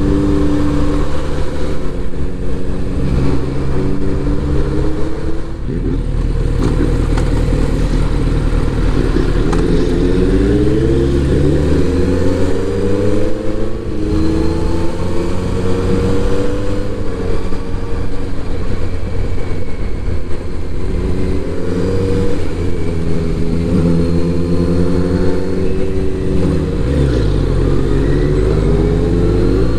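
Kawasaki inline-four motorcycle engine under way, repeatedly revving up in pitch and dropping back as it shifts gears and rolls on and off the throttle.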